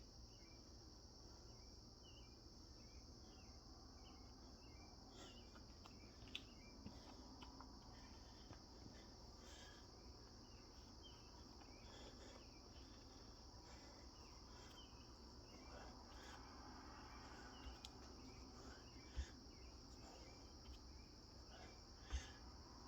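Faint, steady chorus of crickets, a continuous high trill with scattered short chirps over it. Two soft thumps near the end, a few seconds apart.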